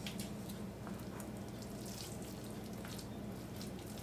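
Spatula scraping a moist chicken pie filling out of a mixing bowl into a pie crust: soft wet scrapes and plops with a few faint clicks, over a low steady hum.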